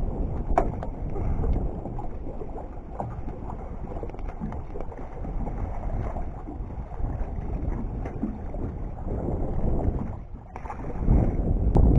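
Wind buffeting the microphone in a steady low rumble, with choppy lake water sloshing.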